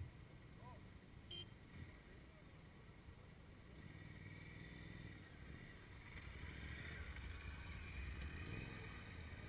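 Large adventure motorcycle engine running at low speed as the bike rolls along a muddy track, faint at first and getting louder from about four seconds in as it comes close.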